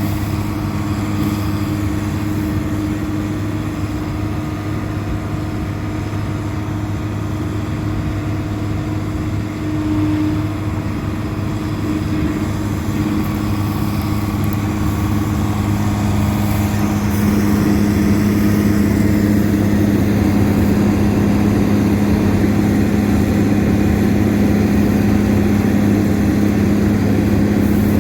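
Combine harvester's diesel engine running steadily while the combine sets its header onto a header trailer. The engine note gets louder about two-thirds of the way through and holds there.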